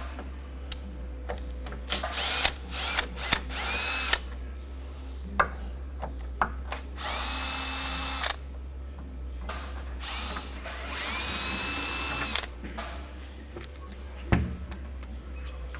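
Power drill driving out the fasteners that hold the bed's headboard and footboard. It runs in several short bursts, then two longer runs of a couple of seconds each, its motor whine rising and then holding. A single sharp knock comes near the end.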